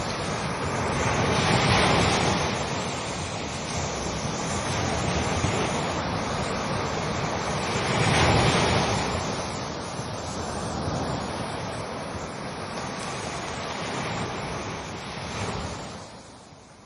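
Ocean waves washing onto a shore in a continuous rush of surf. Two bigger waves swell up and break about two and eight seconds in. The sound fades out near the end.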